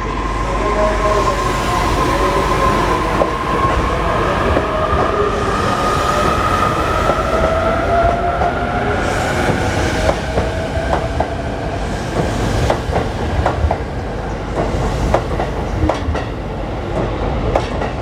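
Electric commuter train with double-deck cars pulling out of the platform: a motor whine rising slowly in pitch as it speeds up, then from about halfway a run of clicks from the wheels over rail joints and points.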